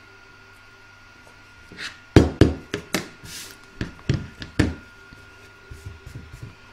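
Sharp knocks and thuds as a plastic embroidery hoop and a pair of scissors are put down and the hoop is moved about on a cutting mat, starting about two seconds in, with a brief rustle of stabiliser among them. Softer taps and rustling follow near the end.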